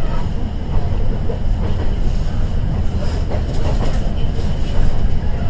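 Sound inside the cabin of a KiHa 110 series diesel railcar under way: a steady low rumble of the engine and of the wheels running on the rails, with a few faint clicks.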